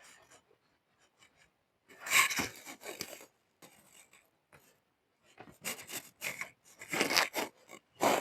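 Fabric rustling and rubbing in short irregular bursts as the layers of a cloth jacket are gathered and handled to pin a brooch through them.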